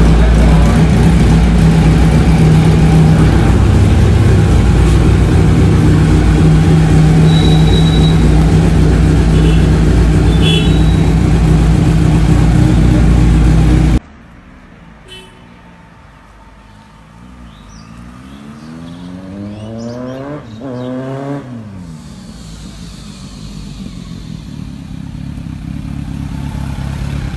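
Kawasaki Z900's inline-four running steadily through an SC-Project aftermarket exhaust, very loud at close range, until it cuts off abruptly about halfway through. After that the sound is much quieter: a passing vehicle's engine note rises and then falls, and the motorcycle's engine grows louder as it approaches near the end.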